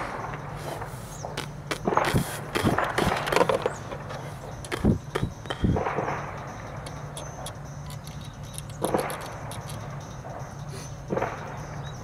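Irregular knocks, scrapes and rustles of handling around a car's engine bay as multimeter probes are held on the alternator, over a faint steady low hum.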